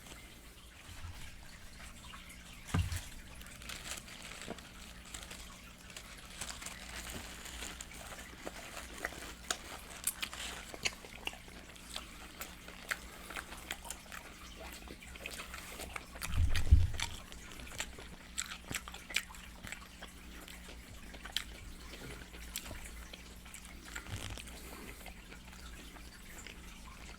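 Close-miked wet chewing and lip-smacking from someone eating fried chicken, with a steady run of small sharp mouth clicks. There is a low thump about three seconds in and a louder one a little past the middle.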